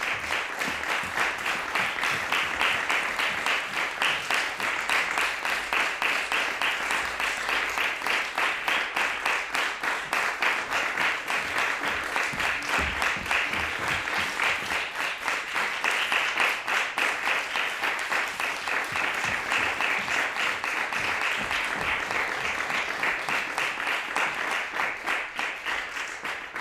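Theatre audience applauding, dense steady clapping that starts to die away near the end.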